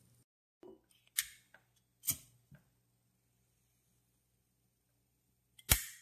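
Sharp metallic clicks from a vintage Ronson gas lighter being worked by hand: three loud snaps, about a second in, two seconds in and near the end, with fainter ticks between.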